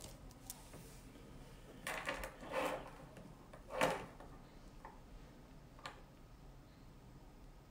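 Handling noise from a smartphone in a protective case being picked up and moved: three short rustling scrapes in the middle and a few light clicks and taps.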